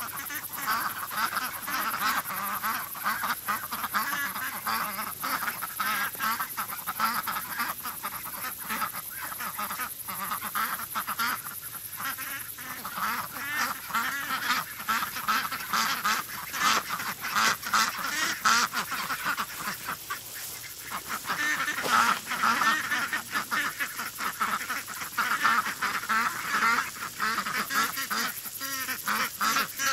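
A flock of domestic ducks quacking constantly, many short calls overlapping, growing louder around the middle.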